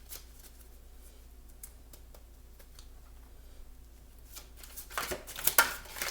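Tarot cards being handled and shuffled: a few faint soft clicks, then a short burst of loud card shuffling near the end.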